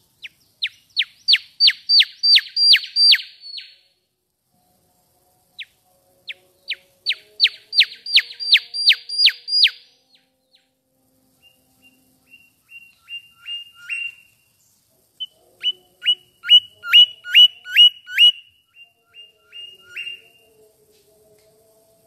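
Mangrove whistler singing: three phrases of rapid, sharply down-slurred whistled notes, about three a second, each phrase growing louder. The last phrase is pitched lower than the first two.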